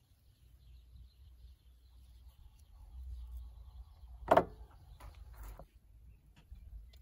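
Rusty hand saw and its loose wooden handle being handled against a steel bench vise: faint rubbing, then one loud knock a little over four seconds in, and a softer scrape about a second later.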